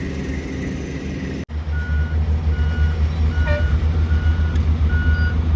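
Vehicle reversing alarm beeping steadily, a little more than once a second, over the heavy rumble of a diesel engine. The beeping starts after an abrupt break about a second and a half in.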